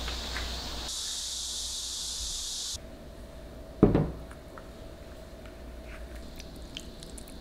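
A steady hiss, then a ceramic pasta plate set down on a round mat on a table with a single knock about four seconds in.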